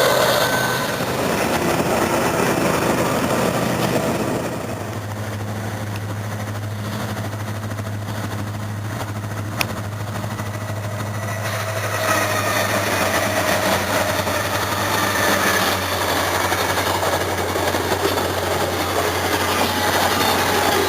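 Train passing with steel wheels squealing near the start and again in the last seconds, and a steady low engine drone through a quieter middle stretch. A single sharp click comes about ten seconds in.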